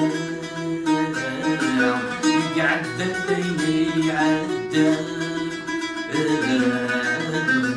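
A man singing while plucking a melody on an Algerian mandole, a steel-strung, lute-shaped instrument.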